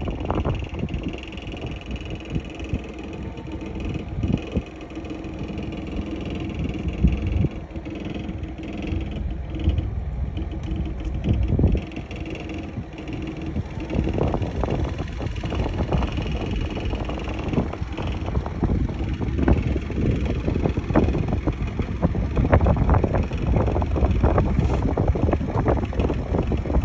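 Wind buffeting the microphone in uneven gusts, with a faint steady hum underneath.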